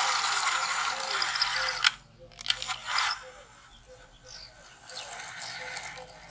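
Remote-control toy excavator's small electric motor and plastic gears grinding as the arm and bucket move. It comes in bursts: a long one of about two seconds, a short one about three seconds in, and a weaker stretch near the end.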